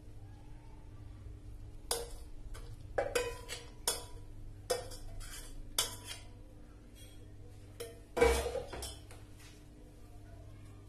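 Metal spoon clinking and scraping against a steel pot as paneer curds are scraped out of it: a run of sharp clinks, the loudest about eight seconds in, over a faint steady hum.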